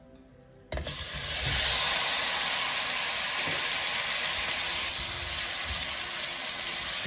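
Apple slices dropped into hot butter-and-sugar caramel in a stainless steel pot, starting to sizzle suddenly a little under a second in, then a steady loud sizzle as they are stirred with a silicone spatula.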